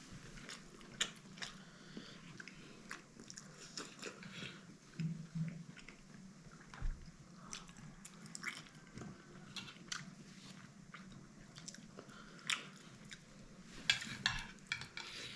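Faint chewing and biting of momo dumplings, with scattered small clicks throughout.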